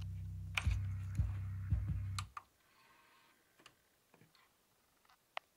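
Low bass test tone from a subwoofer test track, played through a Sony Xplod subwoofer, slowly fading with several sharp clicks over it. It cuts off about two seconds in, leaving near silence broken by a few faint clicks and one louder click near the end.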